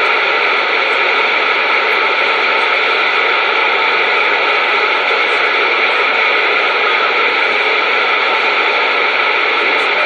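Steady radio static hiss from a receiver picking up only noise between voice transmissions.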